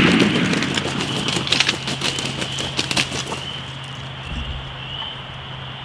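The tail of a shotgun blast fades over the first half second. It is followed by a flurry of crackling, thumping and flapping in dry leaves and brush that dies out about three and a half seconds in: a shot wild turkey (jake) flopping and beating its wings.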